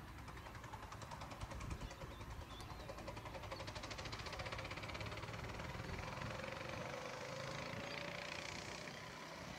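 Jet engines of a Boeing 747-400ER taxiing at low power: a steady, distant rumble with a turbine whine that swells and slightly rises, then eases, near the end.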